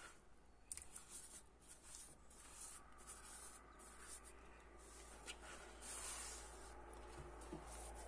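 Paintbrush scratching and dabbing over cement-soaked cloth as it coats it with cement slurry, in a series of faint, short strokes.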